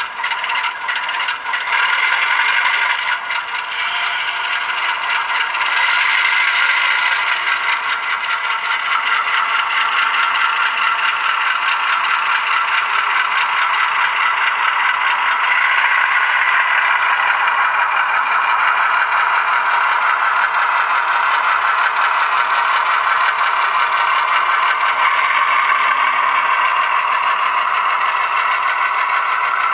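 Alco 244 diesel engine sound from a LokSound Select sound decoder, played through the small speaker of a model NSWGR 48 class locomotive as it accelerates, the engine sound growing louder a few seconds in. A few sharp clicks sound early on.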